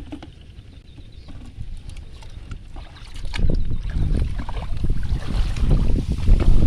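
River water splashing and sloshing, getting much louder about three seconds in, over a low rumble.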